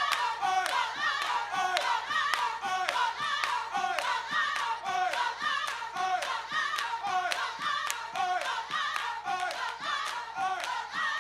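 Gospel choir singing with many people clapping along in a steady rhythm, about three claps a second.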